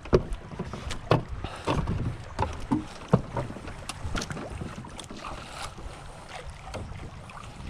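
Irregular knocks on a small wooden outrigger canoe's hull with water splashing alongside, thickest over the first four seconds, then a quieter wash of water and wind.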